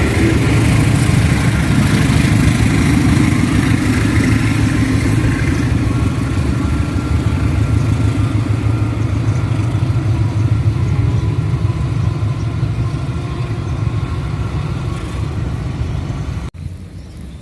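Diesel engine of a CC 206 diesel-electric locomotive running close by with a steady low rumble that slowly fades. Near the end it drops off suddenly to a quieter engine sound.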